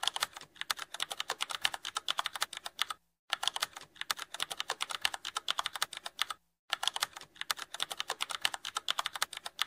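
Keyboard typing sound effect: a fast, steady run of key clicks that breaks off briefly twice.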